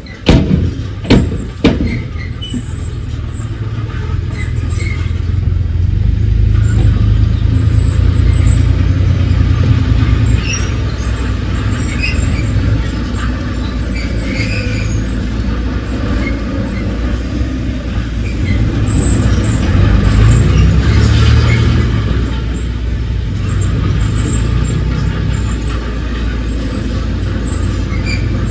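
Heavy diesel earthmoving machinery running under load, a steady low rumble that swells for a couple of seconds past the two-thirds mark. Several sharp knocks sound in the first two seconds.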